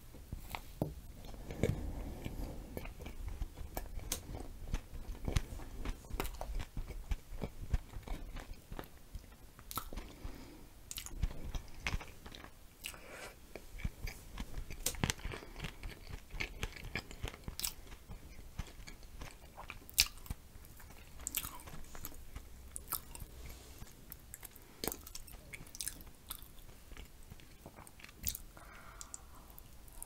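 A person chewing and biting a glazed donut with whipped cream and blueberries, close to the microphone: wet chewing with many short sharp clicks and smacks.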